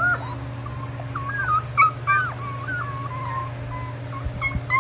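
Beagle puppies whining and yipping, short high-pitched cries that rise and fall, one after another with brief gaps, over a steady low hum.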